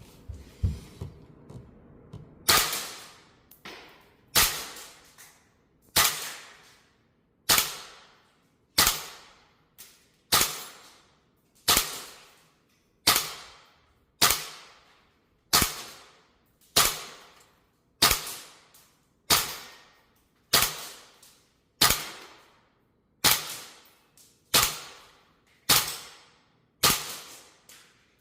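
VFC AR-15 gas blowback airsoft rifle firing single shots, a sharp crack roughly every one and a half seconds, each ringing out briefly. A few lighter clicks come in the first two seconds before the shots begin.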